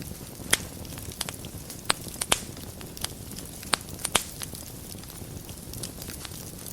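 Wood fire burning in a fireplace: a steady low rumble with sharp crackles and pops, clustered in the first four seconds or so and sparser after that.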